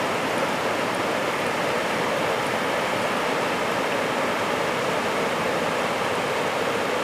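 Steady rush of a mountain stream, an even noise at a constant level with no breaks.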